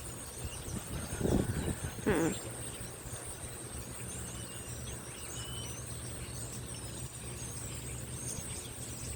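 Steady high-pitched insect drone with scattered bird chirps over a low steady hum. Two short louder sounds come about one and two seconds in; the second is pitched, like a brief call or vocal sound.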